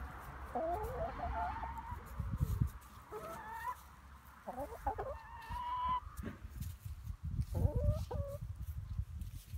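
Barred hens giving soft, content clucks and trilling calls as they peck and forage, short rising and falling calls coming in bunches every second or two. Low muffled thumps come in a couple of times, loudest about two and a half seconds in and near the end.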